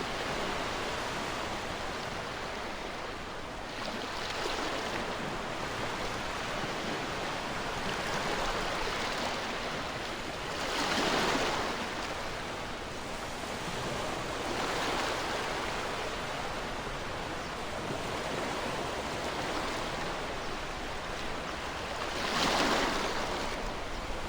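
Ocean surf breaking on a shore: a steady wash of waves that swells every few seconds, with the biggest breaks about eleven seconds in and near the end.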